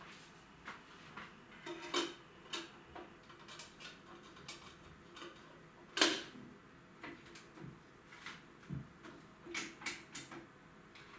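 Light clicks and clacks of a CD being loaded into a compact hi-fi's top-loading CD player: irregular small clicks, a sharp click about six seconds in, and a quick cluster near the end as the player's lid is shut.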